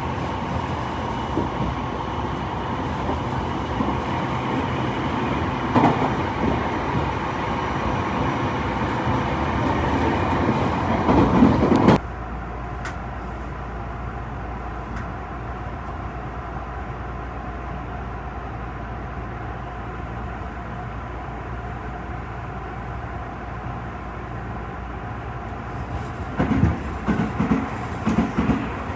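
Tobu 50090 series electric train running, heard from inside the passenger car: steady running noise that cuts abruptly to a quieter, even hum about twelve seconds in. Near the end come rhythmic clacks of the wheels over rail joints.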